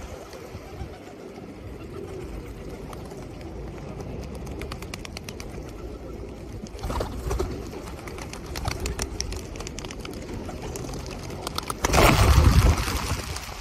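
A flock of feral pigeons cooing and fluttering, with a loud burst of clattering wingbeats about twelve seconds in as many birds take off at close range.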